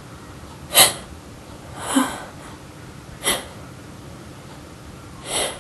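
A person's short, sharp breathy gasps, four of them a second or so apart, the first the loudest: the catching breaths of a sneeze building up.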